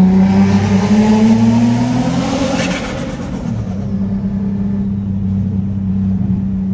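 Nissan 350Z's 3.5-litre V6 accelerating, heard from inside the cabin: the engine note climbs for about two and a half seconds, falls back just after three seconds in, then holds steady as the car cruises.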